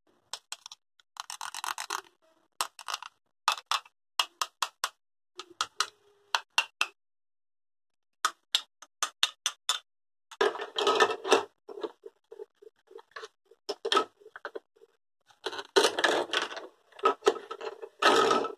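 Hollow plastic toy vegetables and fruit clicking and knocking as they are handled. Denser rasping stretches come from the Velcro-joined halves being pulled apart and pressed back together.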